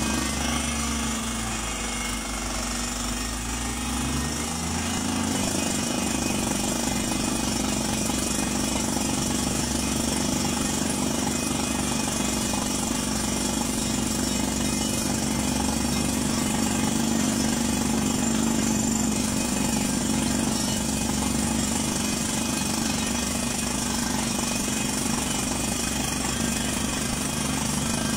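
Truck-mounted down-the-hole (DTH) water well drilling rig running: the air-driven hammer pounds rapidly in the borehole while compressed air blows cuttings and dust out of the hole, over the steady running of the engine and compressor.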